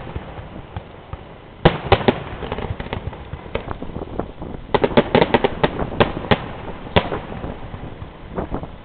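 Fireworks exploding overhead: sharp bangs, one about two seconds in with a few close behind, a rapid cluster of crackling bangs around five seconds, then single bangs near six and seven seconds.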